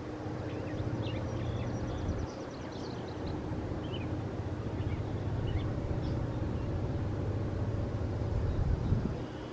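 Wheeling & Lake Erie freight train's loaded hopper cars rolling past: a steady low rumble of wheels on rail. Faint bird chirps sound a few times over it.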